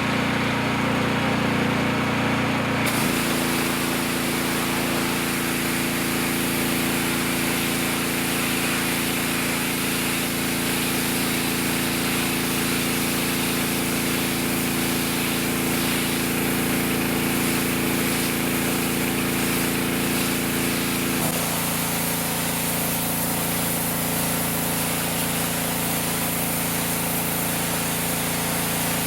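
Champion Pro gas pressure washer running steadily, its engine hum under the hiss of the high-pressure water spray, which sets in about three seconds in.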